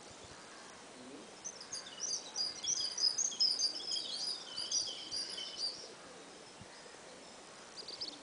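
A small bird singing a rapid run of high, varied chirping notes for about four seconds, starting about a second and a half in. A shorter burst of chirps comes near the end, over steady outdoor background noise.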